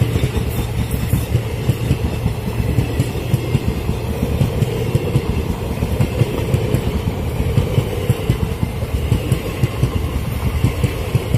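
ICF passenger coaches rolling past close by: a steady loud rumble and rattle of steel wheels on the rails.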